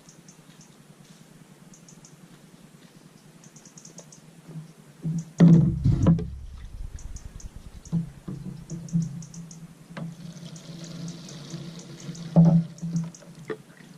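Petrol sloshing and squelching as a dirty air filter is washed and squeezed by hand in a small plastic carton of fuel, with a few loud knocks from handling about five and a half seconds in.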